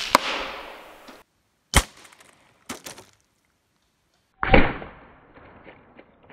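A CZ 457 .22 LR rifle firing a subsonic CCI Suppressor hollow point: a sharp crack at the start that dies away over about a second. Further sharp cracks follow, the loudest about four and a half seconds in, as the edit moves to the water jugs downrange.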